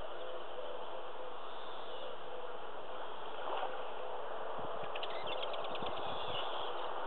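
Steady outdoor hiss with faint bird calls. A low repeated cooing fades in the first second, and a cluster of soft knocks and rustles comes about two-thirds through.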